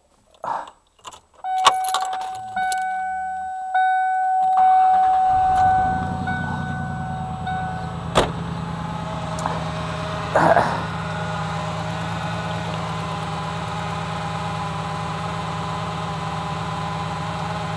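Keys jangle at the ignition and a car's steady warning tone sounds. The starter cranks and the engine catches about five seconds in, then idles steadily; a car door slams about eight seconds in and the warning tone stops. The engine runs with one spark plug removed and that cylinder fitted with a hose, so it works as a compressor pumping up a tyre.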